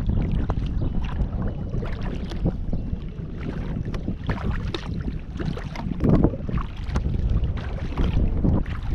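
Wind buffeting the camera microphone in a steady low rumble, with irregular splashes and drips of water from kayak paddle strokes.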